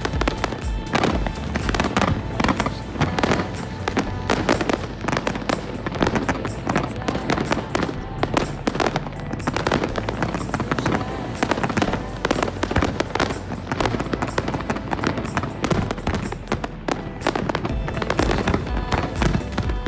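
Background music with steady tones over a dense run of firework bangs from an aerial fireworks display, many quick bangs following one another throughout.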